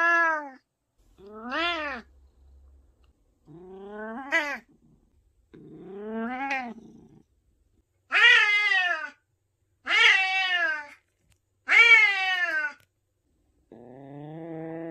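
Senior white cat meowing about eight times in a row, each call about a second long and rising then falling in pitch; the three calls in the middle are the loudest, and the last is lower and more drawn out.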